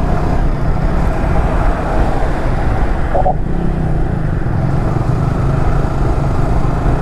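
Riding a Yamaha R15M at a steady cruise: a constant rush of wind over the microphone over the low hum of the bike's 155 cc single-cylinder engine.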